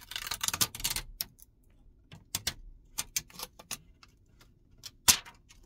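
Plastic protective liner being peeled off a phone's back-glass adhesive and handled: a dense crackling of small clicks in the first second, then scattered ticks, with one sharp click about five seconds in.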